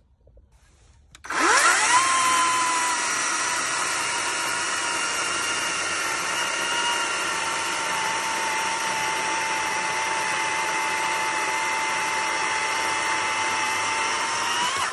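Kress 60-volt battery chainsaw with a 16-inch bar starting up about a second in with a rising whine, then cutting through a 12-inch cherry log: a steady electric motor whine over the rasp of the chain in the wood. It stops abruptly just before the end.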